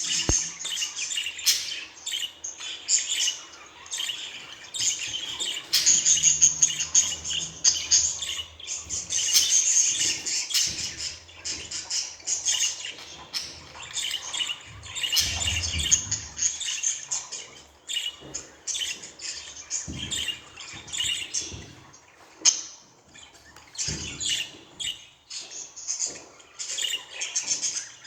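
Budgerigar chirping and warbling: a rapid, high-pitched stream of chirps, trills and chatter, almost continuous with short pauses.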